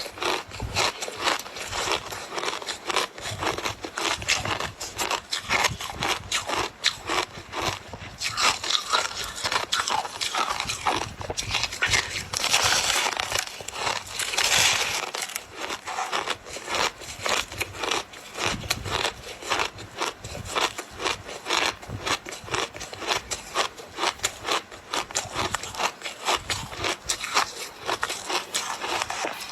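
Ice being bitten and chewed close to the microphone: a dense run of sharp crunches and crackles, thickest about halfway through.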